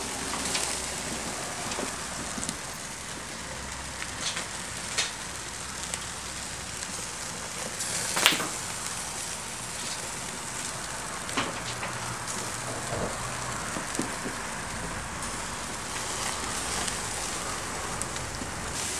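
Ribeye steaks sizzling over the grill's flames: a steady frying hiss, broken by several sharp pops and crackles of fat flaring up. The loudest pop comes about eight seconds in.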